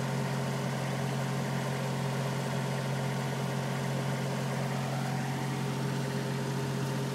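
An engine idling: a steady, low, even hum that does not change.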